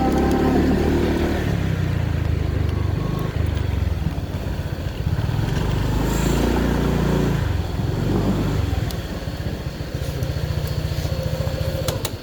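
Motorcycle engine running, its pitch rising and falling several times with the throttle, dropping away sharply near the end.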